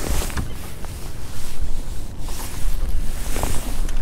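Wind rushing over the microphone, with small waves lapping against a small boat's hull, swelling and easing in gusts.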